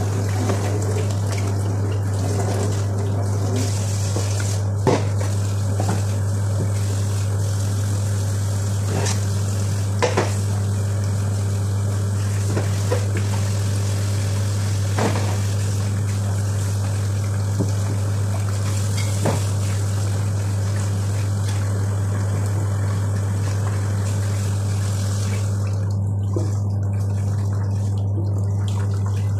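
Kitchen tap running steadily into a stainless-steel sink as vegetables and dishes are rinsed under it, with a few sharp clinks and knocks of dishes against the sink. A steady low hum sits underneath.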